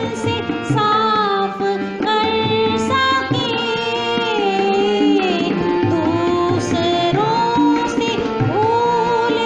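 A group of children singing a school morning prayer to an Indian-style accompaniment with tabla. A melody line glides between held notes over a steady drum beat.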